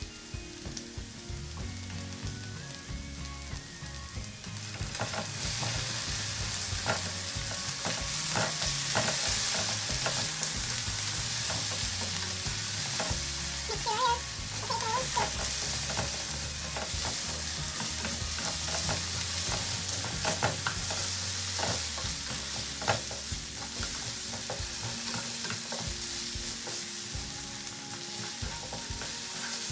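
Diced potatoes frying in olive oil in a frying pan, sizzling steadily, louder from about five seconds in, while a wooden spatula stirs and scrapes them around the pan.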